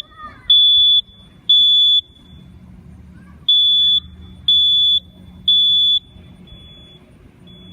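Wireless interconnected smoke detector sounding its alarm in the three-beep evacuation pattern: three loud, high-pitched half-second beeps, a pause, then three more. Only faint beeps follow near the end.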